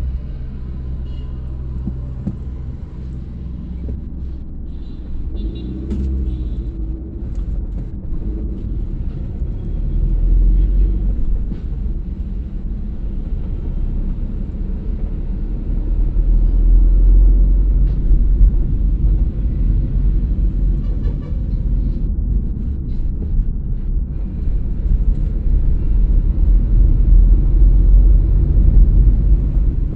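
Moving car heard from inside the cabin: a steady low rumble of engine and tyre road noise. It grows louder in stretches, about ten seconds in and again over the last several seconds.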